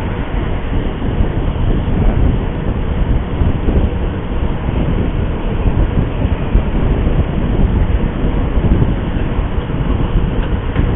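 Steady rumble of wind and road noise while travelling along a road, without any distinct single event.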